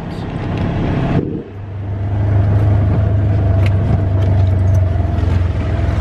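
Side-by-side utility vehicle's engine running while driving over a dirt road, heard from the open cab. About a second and a half in the sound dips briefly, then settles into a louder, steady drone with a faint higher whine over it and a few small clicks.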